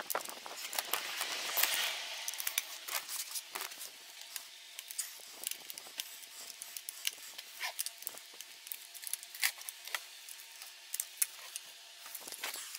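A socket wrench loosening the crankcase bolts of a Hyosung GD250N engine: a rustling scrape for about the first two seconds, then scattered light metallic clicks and taps at irregular intervals.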